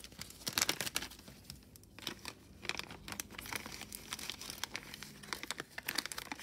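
Thin clear plastic bag crinkling and crackling in irregular bursts as it is handled and a wire bangle bracelet is slipped into it.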